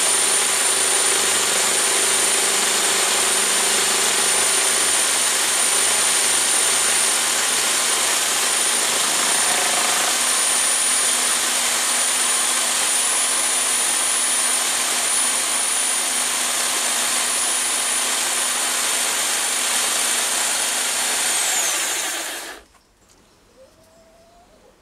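A mains electric drill spinning a flycutter across an aluminium bar, running with a steady high whine. About 22 seconds in it is switched off, and the whine falls in pitch as it spins down.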